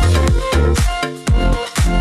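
Background electronic dance music with a steady beat of about two strokes a second.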